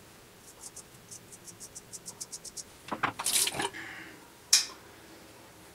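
Dovo 5/8 straight razor scraping through lathered stubble in a quick run of short strokes, about six a second. It is followed about three seconds in by a louder rush of noise and, near the end, one short sharp swish.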